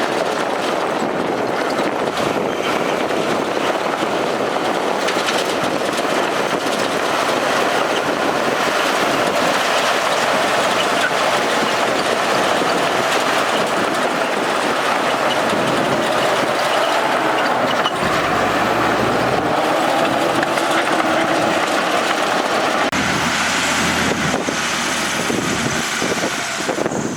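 Heavy diesel earthmoving machinery, a bulldozer and dump truck, running hard as a steady, dense din. About two-thirds of the way through, an engine note shifts and slides in pitch as the machines work.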